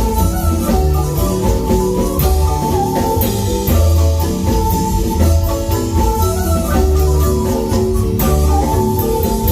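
Marimba ensemble playing a dance tune: quick mallet notes on the marimba over a strong, steady bass line, with drum strokes throughout.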